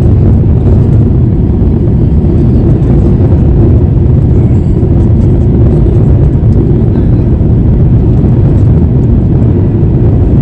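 Airbus A350 landing, heard from inside the passenger cabin: a loud, steady low rumble from the engines and the runway.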